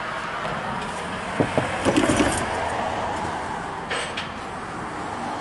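Steady vehicle rumble, with a few short knocks and clicks between about one and a half and two and a half seconds in, and again near four seconds.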